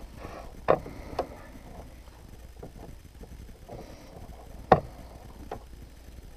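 Small thread-snipping scissors cutting the broken bobbin thread at a sewing machine's needle plate: a few sharp clicks, the loudest about five seconds in, over soft rustling of the quilt being handled.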